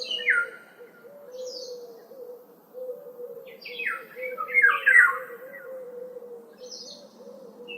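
Birdsong ambience with several birds. Loud phrases of quick downward-sliding chirps come at the start and again about halfway, with short high notes in between. A continuous low warbling runs beneath them.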